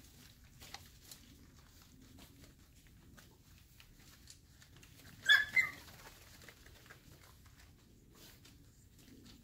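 Five-week-old Airedale Terrier puppies playing: one pup gives two short, high yelps about five seconds in, over faint scratching and ticking of paws and claws on the floor.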